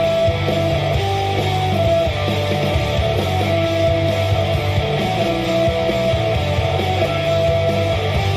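Rock music with guitar playing steadily, with a strong bass.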